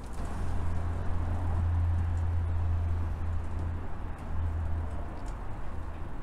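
Low, steady rumble of road traffic, fading a little near the end, with a few faint clicks over it.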